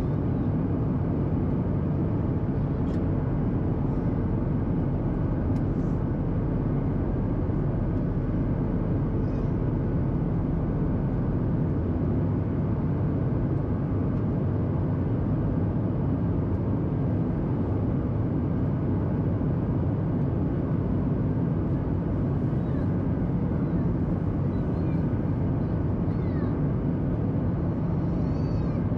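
Steady cabin noise inside a Boeing 737-800 in flight: the hum of its CFM56-7B turbofans and the rush of air over the fuselage, even and unchanging. A few faint high chirps come in near the end.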